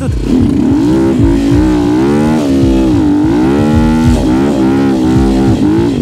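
Sharmax RX300 enduro motorcycle engine under load off-road, its revs rising and falling again and again as the throttle is worked.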